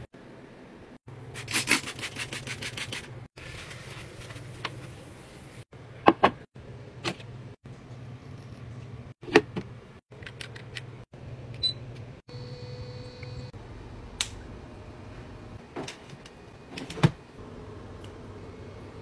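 Handling sounds of cleaning products and household items: a fast run of clicks about one and a half seconds in, then scattered sharp taps and clicks of bottles and caps being handled, over a low steady hum.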